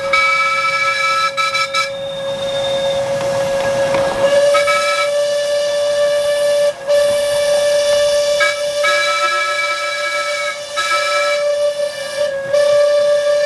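Several miniature steam locomotive whistles blowing together: one whistle is held steadily throughout, while others of different pitch cut in and out over it.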